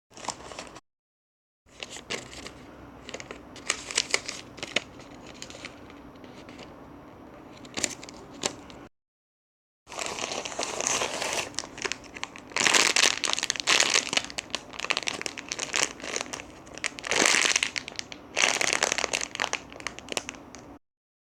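Packaging crinkling and rustling as a parcel is handled and opened, with many small crackles. It gets louder and busier from about halfway through, and drops to dead silence twice where the recording is cut.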